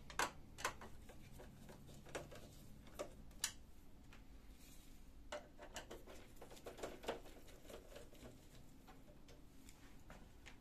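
Faint, scattered clicks and taps of a screwdriver working screws out of the rear panel of an HP LaserJet 2400-series printer, with light knocks against the plastic.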